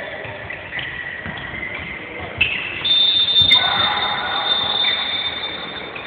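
Sounds of an indoor handball game in an echoing sports hall: spectators' voices, a sharp knock about three and a half seconds in, and a high steady whistle tone held for about three seconds from just before the middle.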